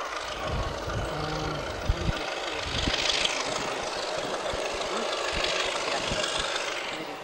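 Class 33 diesel locomotive's Sulzer eight-cylinder engine working under power as it pulls a train away, loudest about three seconds in.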